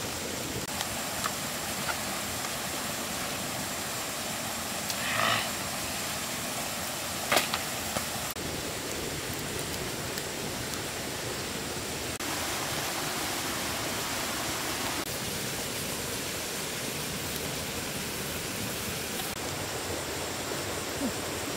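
Steady rushing of river water, with a faint steady high tone over it. A short call sounds about five seconds in, and a few sharp pops come from the campfire, the loudest about seven seconds in.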